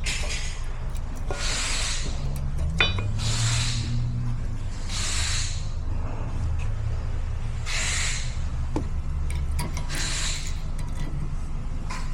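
Rear brakes giving six short scraping hisses, a second and a half to three seconds apart, over a steady low rumble from the vehicle.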